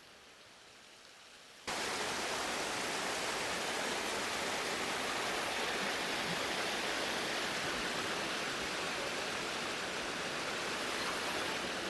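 Waterfall: a loud, steady rush of falling water that cuts in suddenly about two seconds in, after a near-quiet start.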